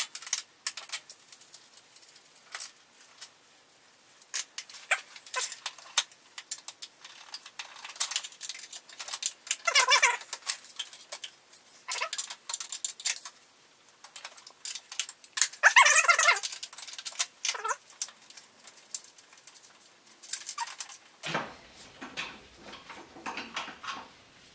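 Fast-forwarded, pitched-up audio of wrench work on a garden tractor: rapid clinks and clicks of steel wrenches and bolts. Two squeaky, chipmunk-like sped-up voice sounds come about ten and sixteen seconds in.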